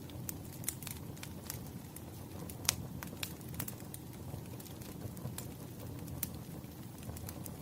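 Wood fire crackling: irregular sharp pops and snaps over a low, steady rumble of burning logs, with one louder pop about a third of the way in.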